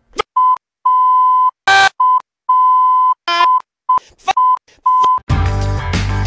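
A string of censor bleeps: one steady beep tone cutting in and out many times over a man's speech, with short fragments of voice heard between them. About five seconds in, loud music with a heavy bass starts.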